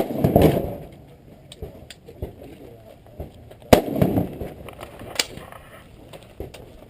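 Rifle shots on a range: a loud shot at the very start, another about 3.7 s in and a third about 5.2 s in, each followed by a rolling echo.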